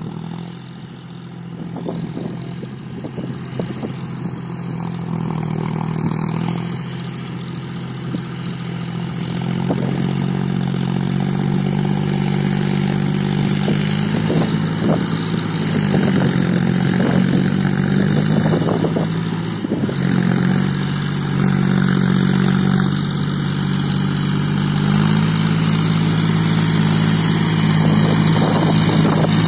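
John Deere 5045D tractor's three-cylinder diesel engine running steadily under load while pulling a rotavator through flooded paddy mud. Its note shifts a little in pitch now and then and grows louder as the tractor comes closer.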